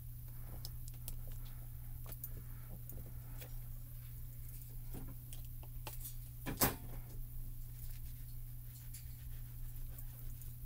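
Faint handling sounds of a clear stamp on an acrylic block pressed onto cardstock and lifted off: scattered light clicks and taps, with one sharp knock about six and a half seconds in, over a steady low hum.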